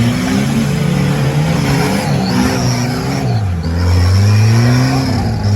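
Off-road vehicle's engine revving, its pitch rising and falling with the throttle. It drops low about three and a half seconds in, then climbs again and holds.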